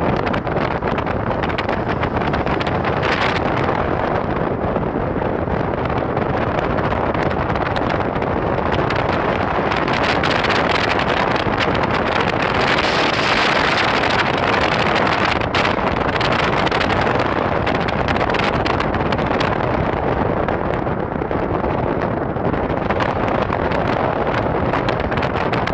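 Wind rushing over the microphone at an open side window of a moving car, mixed with the car's tyre and road noise. The rush grows louder and hissier about halfway through, then eases.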